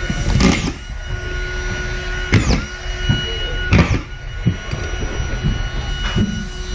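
Drywall hanging work: about six sharp knocks and thumps as a worker moves about and handles tools and board on a wooden plank, the loudest about half a second in and at roughly two and a half and four seconds. Behind them runs a steady mechanical hum with a few fixed tones.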